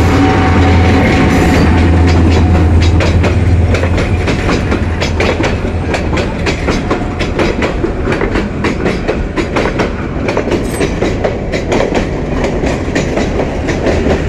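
Passenger train passing close by: the diesel locomotive goes past with a deep steady engine drone for the first few seconds, then the coaches roll by, their wheels clacking rhythmically over the rail joints.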